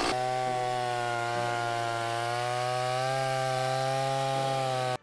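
Stihl MS 170 two-stroke chainsaw running steadily at high revs under load as it cuts through a dead tree trunk, its pitch wavering slightly, then cutting off suddenly near the end.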